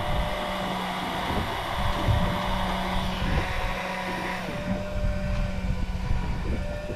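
Boat engine running steadily at idle, a constant low hum, with wind and water noise around it.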